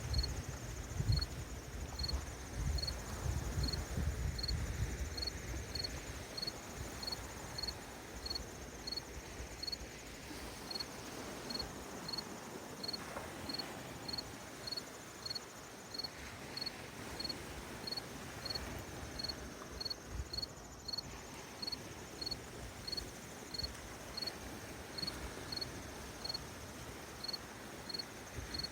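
A cricket chirping steadily on one high note, about three chirps every two seconds, with a couple of short pauses. Beneath it is a soft, steady wash of gentle lake waves, with low rumbling surges in the first few seconds.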